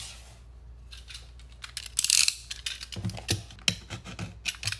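A snap-off utility knife clicking and scraping as it slits the seal on a small cardboard box, with a sharp scrape about two seconds in and light clicks and taps of blade and box after it.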